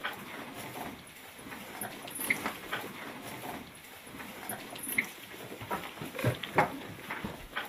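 Faint barn sounds of a cow licking and nuzzling her young calf: scattered short snuffles, smacks and rustles, with no steady noise.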